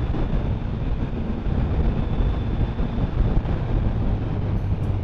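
Motorcycle riding at speed: wind noise buffeting the microphone over a steady engine drone.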